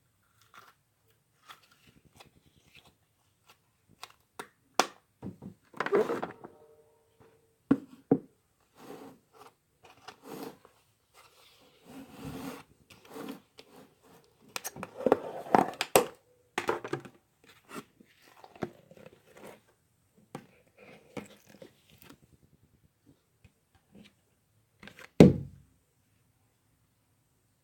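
Slime being handled and pressed by hand: irregular clicks and squishes, with one loud knock near the end.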